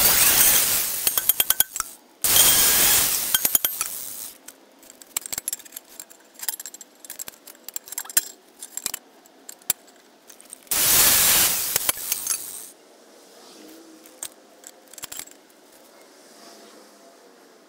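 Angle grinder with a cut-off wheel cutting through lawnmower-blade steel in three bursts of about two seconds each: two back to back, then one about eleven seconds in. Between the cuts come scattered light clinks and knocks of the steel being handled.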